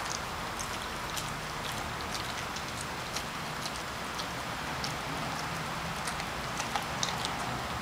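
A Rottweiler chewing a raw mackerel: irregular wet crunches and clicks, several a second, over a steady background hiss.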